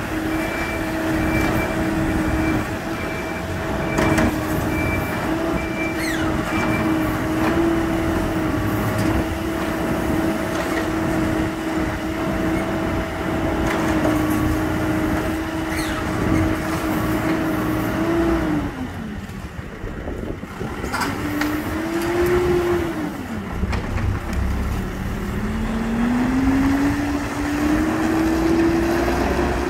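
Diesel engine of a heavy construction machine running at steady high revs. About two-thirds of the way through the revs drop, rise and fall once, then climb slowly again near the end. A faint repeated beep sounds over the first few seconds.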